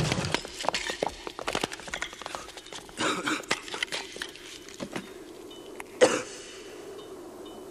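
Debris and glass clinking and pattering down just after an explosion, then a person coughing in the smoke about three seconds in, with another sharp burst near six seconds.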